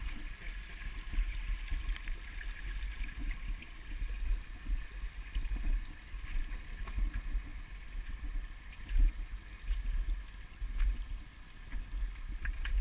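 Shallow stream trickling over rocks, heard under a strong, uneven low rumble of wind and movement on a walking action camera's microphone.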